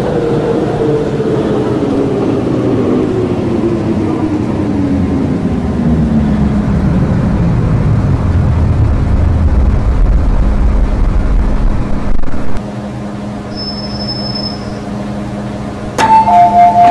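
MTR M-Train electric multiple unit slowing to a stop: the traction motor whine falls steadily in pitch for about ten seconds and dies away, leaving a steady electrical hum. Near the end a loud two-tone electronic chime sounds twice.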